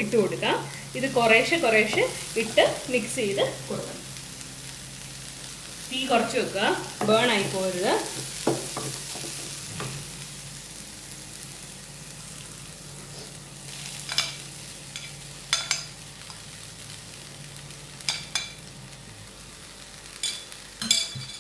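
Diced vegetables (peas, carrots, beans, green chillies) sizzling in a non-stick frying pan while a wooden spatula stirs them. In the second half come a few short sharp scrapes and knocks of the spatula against the pan as the cooked rice goes in.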